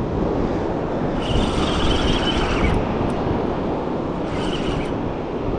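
Steady rush of surf and wind on the microphone, with two higher hissing surges, a longer one about a second in and a shorter one near the end.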